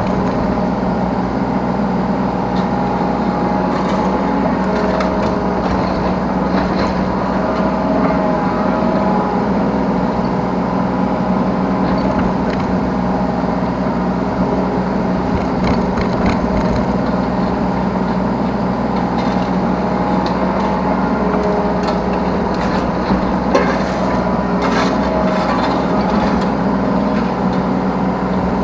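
Yanmar B3 Sigma 3-ton mini excavator's diesel engine running steadily under hydraulic load, heard from the operator's seat, with scattered knocks and clatter as the bucket works soil and debris.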